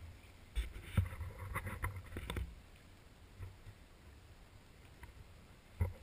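Handheld camera handling noise while walking on a forest trail: a cluster of knocks, rubs and rustles from about half a second to two and a half seconds in, and then a single thump near the end.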